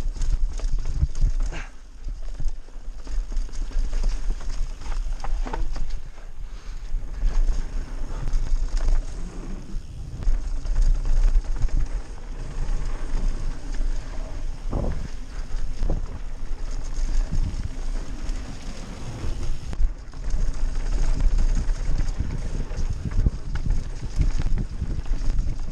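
Downhill mountain bike running fast over a loose dirt trail: constant wind buffeting the action camera's microphone, with tyre noise and frequent knocks and rattles as the bike hits bumps.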